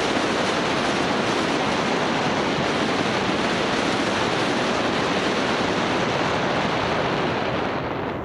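A steady rushing noise, easing off slightly about eight seconds in.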